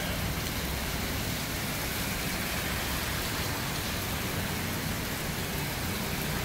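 Heavy rain pouring onto a wet paved street, a steady hiss.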